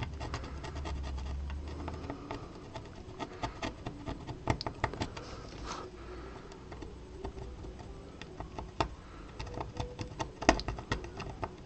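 A small pointed tool scratching the coating off both ends of a burned copper trace on a monitor's power-supply circuit board, heard as a run of irregular small scratches and ticks. The scraping exposes bare copper so the broken trace can be bridged with solder.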